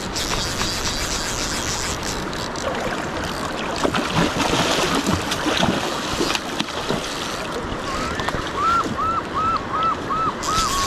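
Kenai River current rushing and lapping along the bank, with wind on the microphone. In the last two seconds a quick string of short, repeated high notes starts up, a few per second.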